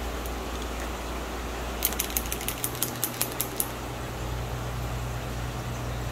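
A quick run of about a dozen sharp ratcheting clicks, about two seconds in, as a ratchet is worked by hand. A steady low hum continues underneath.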